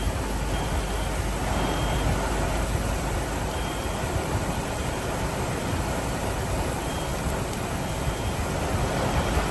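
Heavy tropical rain pouring down steadily: a dense, even hiss of rainfall with no letup.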